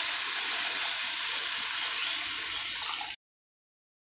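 Water poured from a jug into a hot kadhai of fried masala and oil, hissing and sizzling as it hits the oil and slowly dying down, then cut off suddenly about three seconds in.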